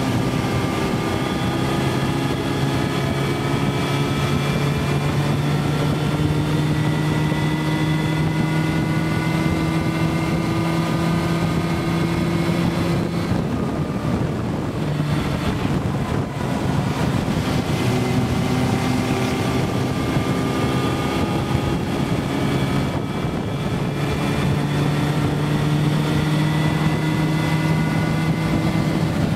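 Motorcycle engine running at steady road speed, its note rising gradually, under heavy wind rush on the microphone. About halfway through the engine note fades into wind noise for a few seconds, then comes back.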